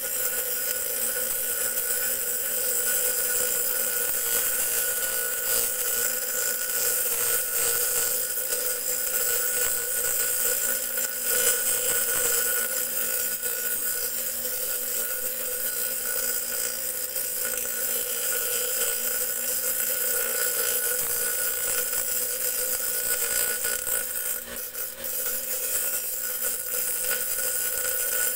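Steel tari blade being ground against a spinning motor-driven abrasive disc, throwing sparks: a steady grinding hiss over the disc's running whine. It briefly eases off near the end.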